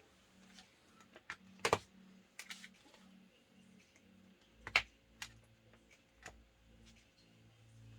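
Scattered light clicks and knocks of small objects being handled, with two louder knocks about two seconds and five seconds in.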